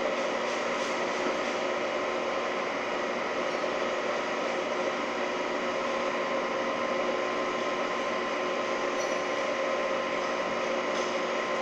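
Holzmann ED 1000 metal lathe running at 770 rpm while turning a steel workpiece: a steady machine whir with several constant whining tones.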